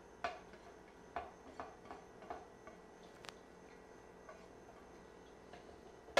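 Silicone-tipped tongs tapping and scraping against a plate and a plastic food-processor bowl as grated potato is pushed in: a handful of soft, separate ticks, most of them in the first three and a half seconds.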